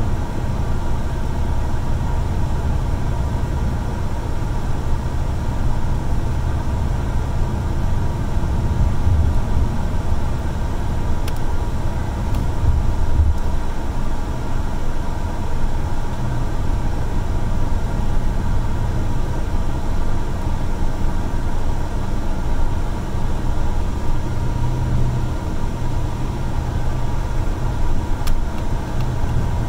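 City transit bus running steadily at highway speed: a continuous low engine and road rumble with a faint steady whine above it.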